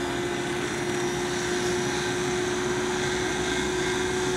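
Spinning gyro flywheel of a SkyRC Super Rider SR4 RC motorcycle, running up to speed with the bike held stationary: a steady whine at one pitch over a hiss, like a turbine.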